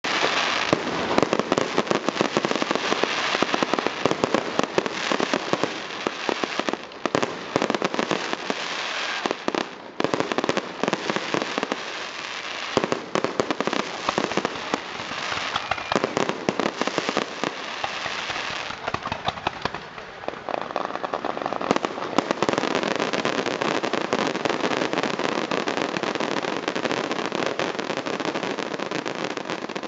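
Aerial fireworks going off in a dense, continuous run of crackling and popping, thinning briefly about ten seconds in and again around twenty seconds.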